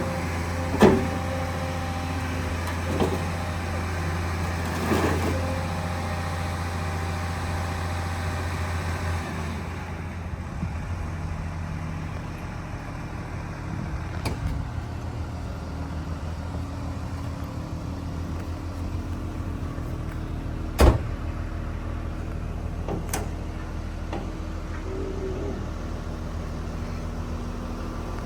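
Volvo EW210D wheeled excavator's diesel engine running steadily, its note changing about a third of the way through. Sharp clicks and knocks sound now and then, the loudest near the start and about two thirds of the way in.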